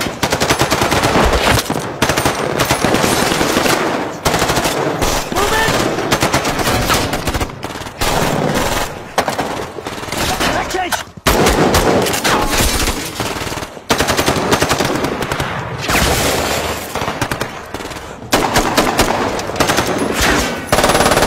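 Heavy automatic gunfire from assault rifles: long strings of rapid shots, several guns firing at once, broken by brief pauses.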